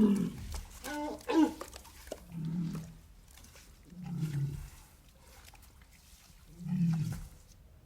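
Cartoon giant walrus vocal effect, a voiced growl mixed with realistic walrus sounds: a laugh-like string of calls in the first second and a half, then three low grunting growls a second or two apart, each about half a second long, some dropping in pitch at the end.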